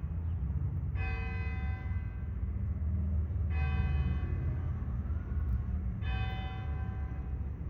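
A single church bell tolling: three strokes about two and a half seconds apart, each ringing out and fading before the next, over a steady low rumble.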